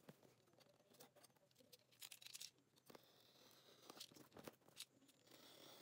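Near silence, broken by a few faint taps and scrapes of hands handling a cardboard box.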